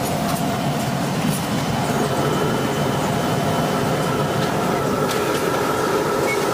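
Steady whirring mechanical noise of an automatic shirt-ironing machine running, with a faint whine joining about two seconds in and a few light clicks.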